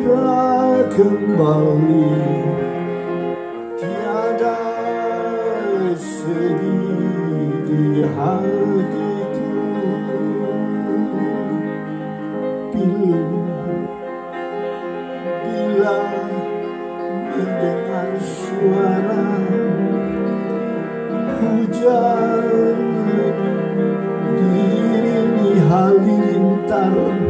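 Upright piano played as accompaniment under a singing voice that holds long notes with vibrato.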